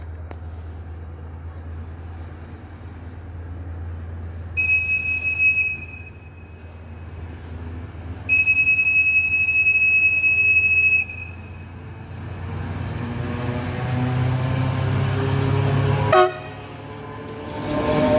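Diesel locomotive sounding its horn twice as it approaches, a short toot and then a longer blast of nearly three seconds, as a greeting. Its engine then grows louder and rises in pitch as it draws near, with a sharp knock and then the loud noise of the locomotive passing close by near the end.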